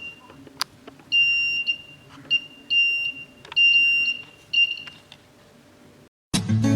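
Small piezoelectric buzzer sounding a high, steady alarm tone in four beeps of uneven length, the Arduino intruder alarm going off as something comes in the way of its ultrasonic sensor. A sharp click comes about half a second in. Acoustic guitar music starts near the end.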